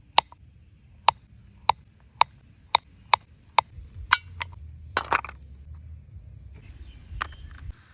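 A run of about eight sharp knocks, roughly two a second, each ringing briefly. About five seconds in comes a short scraping rasp, and there is one more knock near the end.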